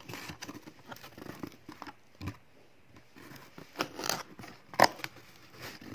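Cardboard box flaps being opened and handled: scattered rustles, scrapes and crinkles of cardboard, with the loudest sharp crackle about five seconds in.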